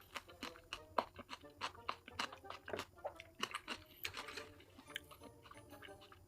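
A person chewing food close to the microphone: wet smacking and clicking mouth sounds, several a second in an uneven rhythm.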